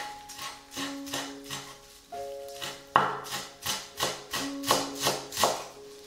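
Chef's knife mincing parsley on a wooden cutting board: a run of sharp chops, sparse at first, then quicker and louder, about three a second, from about halfway through. Light acoustic background music plays underneath.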